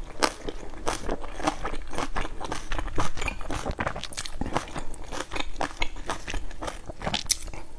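Close-miked chewing and biting of dumplings: a dense run of short, irregular wet mouth clicks and crackles.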